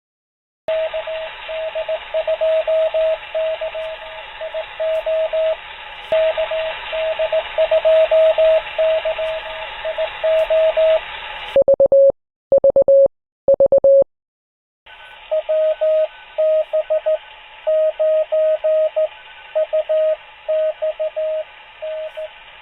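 Morse code on a ham radio receiver: a single tone keyed in dots and dashes over steady band hiss, stations sending their callsigns. About halfway through, the hiss stops and a louder, cleaner keyed tone, a little lower in pitch, sounds for a couple of seconds. Then a fainter station's call starts up with the hiss again.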